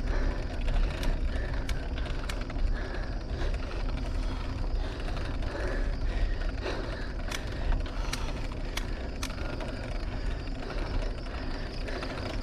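A bicycle ridden slowly up a very steep climb: a steady low rumble with a few scattered sharp clicks and creaks from the bike under load.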